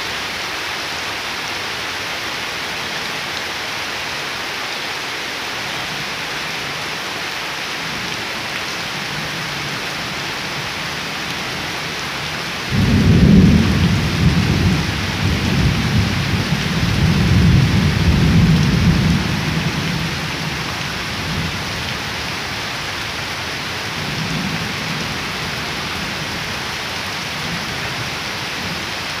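Heavy rain falling steadily onto waterlogged ground and leaves. About thirteen seconds in, a deep rumble of thunder starts suddenly and rolls on for about seven seconds, with a fainter rumble a few seconds later.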